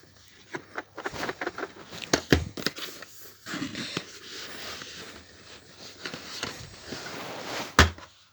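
A DVD box set's packaging being handled and unwrapped: plastic wrap crinkling and tearing, with many small clicks and one sharp knock near the end.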